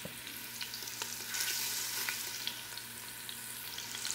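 Beef short ribs searing in hot olive oil in an Instant Pot on high sauté: a steady sizzle with scattered crackling pops.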